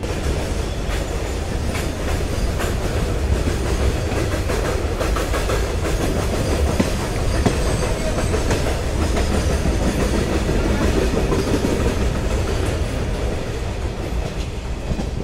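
Passenger train coach running on the track: a steady rumble with irregular clickety-clack as the wheels pass over rail joints and pointwork, heard from the moving coach.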